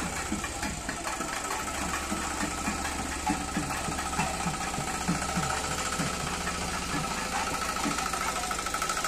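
Small diesel goods vehicle's engine chugging unevenly as it creeps past close by, with crowd voices around it.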